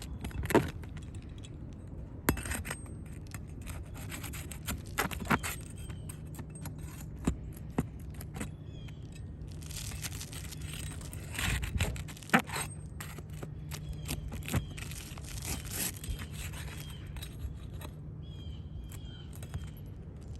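Roof shingles being worked loose with hand tools for a repairability test: scraping with sharp clicks and knocks scattered throughout, over a steady low hum.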